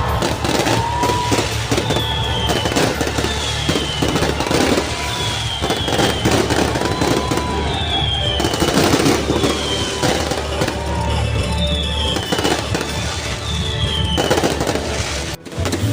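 Fireworks going off in rapid, crackling bursts, mixed with background music that has a steady bass.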